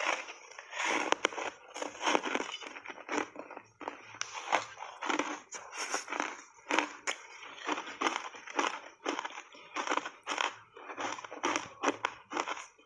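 Reshaped ice coated in matcha and milk powder being crunched and chewed in the mouth, close-miked: a run of irregular crisp crunches, about two or three a second.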